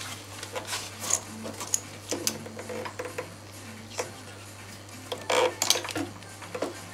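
Irregular metallic clinks and knocks as a BMW K100 aluminium gearbox is worked by hand into place on the engine in the frame, with a louder cluster of knocks about five seconds in. A steady low hum runs underneath.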